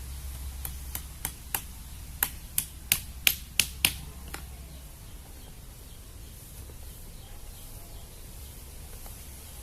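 A quick series of about eleven sharp clicks, around three a second, that stops about four and a half seconds in, over a low steady rumble of wind noise.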